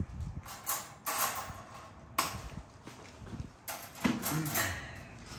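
Handling noises as a puppy is lifted from a wire crate and carried to a chair: scattered knocks, scuffs and rustles, the sharpest knock about two seconds in.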